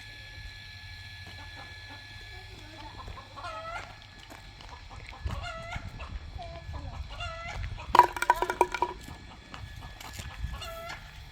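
Domestic chickens clucking in short separate calls, with a louder, rapid run of calls lasting about a second, eight seconds in.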